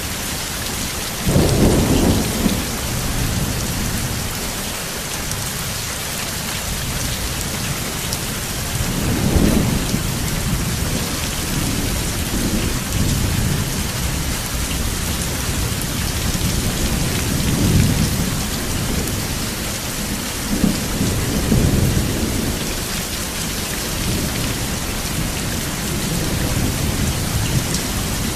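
Steady rain falling, with rolling thunder rumbling underneath. The loudest roll comes a couple of seconds in, and further rumbles swell and fade about a third, two-thirds and three-quarters of the way through.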